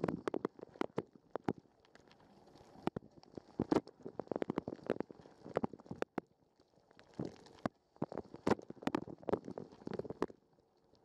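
Dishwasher wash cycle heard from inside the machine through a waterproof camera housing: irregular splashes and sharp knocks of water spray striking the case, in uneven clusters with short lulls.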